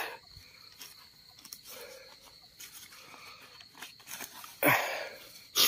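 Rustling and crinkling as a mosquito net and the sleeping mat are handled and tucked in, with a louder rustle about five seconds in and another near the end. A steady high cricket trill sounds behind it.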